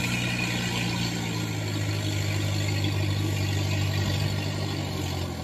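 Engine of a tracked crawler carrier loaded with bags of fresh rice, running steadily under load as it climbs a steep bank.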